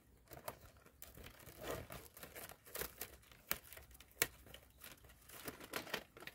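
Dry palm-leaf strips crinkling and rustling as they are handled, tucked and pulled through a woven palm weave, with scattered sharp clicks.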